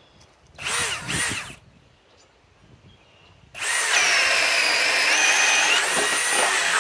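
RIDGID high-torque cordless hammer drill with a 1-1/4 inch spade bit, two short revs of the motor about a second in. From about three and a half seconds it bores steadily through a wooden post on speed 2, its pitch dropping slightly twice as the bit loads up, and it stops near the end once the bit is through.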